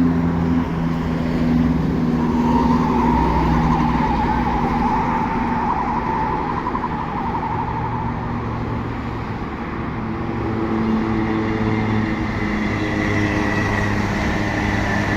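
Whoosh high-speed electric train (KCIC400AF) running along the track: a steady rumble with humming, whining tones that shift in pitch as it goes.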